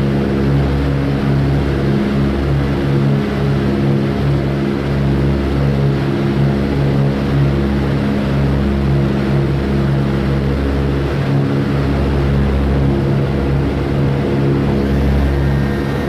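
Boeing B-17's Wright Cyclone nine-cylinder radial engines running steadily at low power while the bomber taxis, heard from inside the fuselage. The deep drone swells and fades slowly every second or two.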